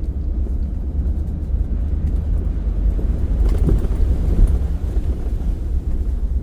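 Pickup truck driving, a steady deep rumble of engine and road noise heard from inside the cab.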